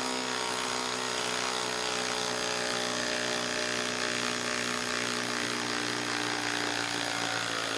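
Hilti cordless 1/4-inch hex impact driver hammering steadily in reverse, backing a lag screw out of a wooden log through a socket.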